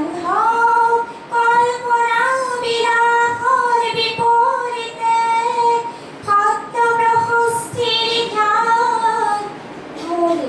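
A woman singing solo into a microphone, long held notes that slide between pitches, in two phrases with a short breath about six seconds in.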